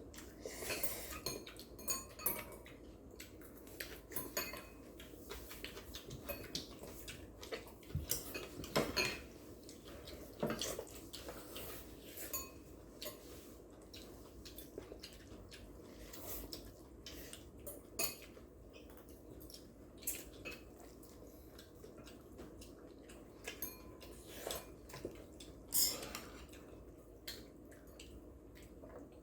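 Eating utensils clicking and tapping against bowls and plates during a meal of jjapaghetti noodles and fried eggs: irregular small clicks throughout, with a few louder knocks about a third of the way in and again near the end.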